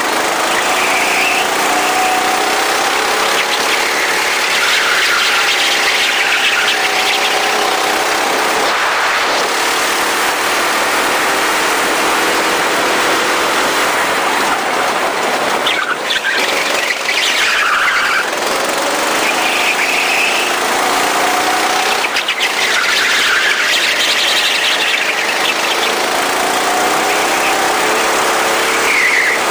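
Go-kart engine running hard, its pitch rising and falling in repeated swells every few seconds as it accelerates and slows, with a high squealing sound over it at times.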